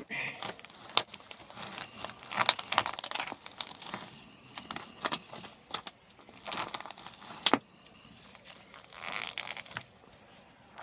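Plastic packaging crinkling and tearing as raw chicken is unwrapped and handled, in irregular rustles with a few sharp clicks.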